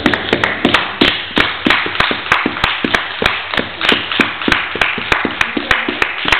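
A small group clapping in a steady unison rhythm, about three claps a second, over a scatter of looser applause.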